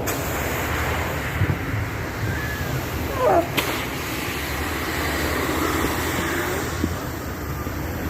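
Barge launch: a steady low rumble and noise, with a few short wavering squeals and a couple of light knocks.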